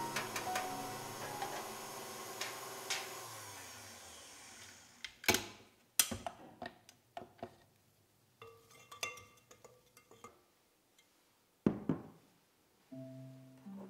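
Background music fades out. Then come sharp metallic clanks and clicks as the wire whisk is taken off a KitchenAid Artisan stand mixer, a few light clinks, and a knock as the glass mixing bowl is set down on the counter near the end.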